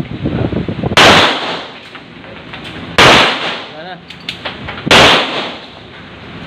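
Three handgun shots about two seconds apart, each ringing out briefly in the reverberant hall of an indoor shooting range.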